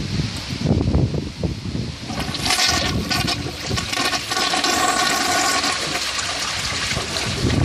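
1995 Gerber Mt. Vernon toilet flushing: a low rumble at first, then from about two seconds in a loud rush of water with a steady whistling hum of several tones until near the end.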